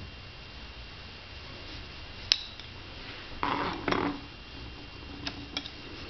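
A thin wooden stick and hands working the yarn on a wooden sprang frame. There is one sharp click about two seconds in, a brief rustling scrape about halfway through, and two light clicks near the end.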